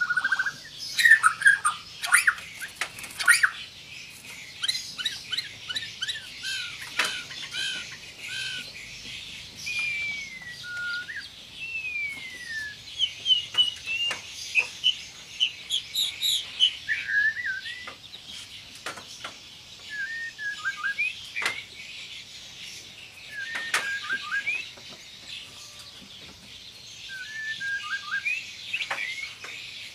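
White-rumped shama singing a varied song: bursts of rapid whistled phrases, sliding notes, quick trills and sharp click-like notes, with short pauses between them, over a constant high hiss.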